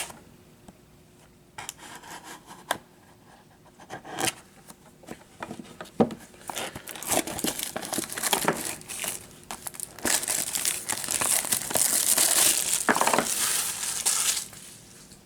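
Plastic shrink-wrap being torn and crinkled off sealed trading-card hobby boxes. It starts with scattered rustles and clicks, then becomes a loud, continuous crinkling for several seconds near the end before it stops.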